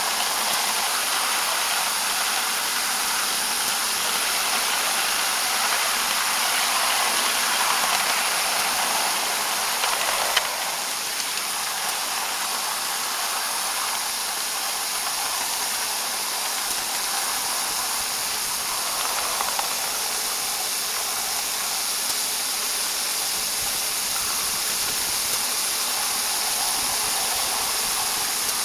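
Steady hiss of steam from a 7½-inch-gauge live-steam locomotive as it runs along the track. There is a single click about ten seconds in, after which the hiss is slightly quieter.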